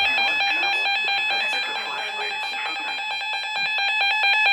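Emergency Alert System alert tone sounding continuously at a steady loud level, warbling rapidly and evenly. It is the attention signal that comes before a broadcast emergency warning.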